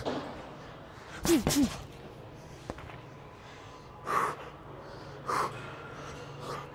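A man's sharp, forceful exhales timed to his punches as he works a heavy bag. There is a quick pair of grunting breaths about a second in, then two single hissing breaths about four and five seconds in.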